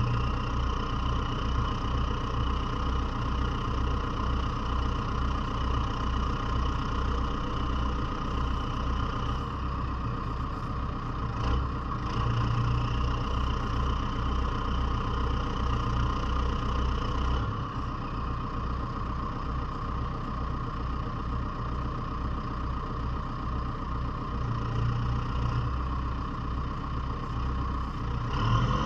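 JCB 3CX Sitemaster backhoe loader's diesel engine idling steadily, with an even low throb that eases slightly about two-thirds of the way through.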